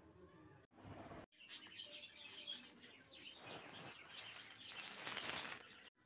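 Budgerigar chicks chirping, a dense run of high calls that starts after two brief dropouts about a second in and carries on.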